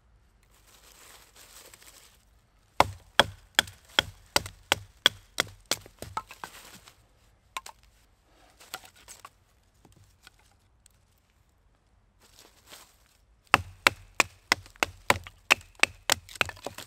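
Batoning firewood: a wooden baton striking the spine of a knife driven into a small log, splitting it into kindling. Two runs of sharp knocks, about three a second, with rustling between them.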